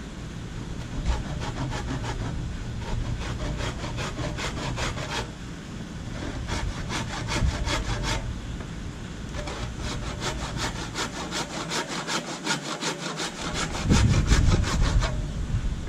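Hand saw cutting through a wooden canoe yoke in steady back-and-forth strokes, about three a second, with a short pause about five seconds in before the sawing resumes. Near the end the strokes stop and a louder low rumble comes in.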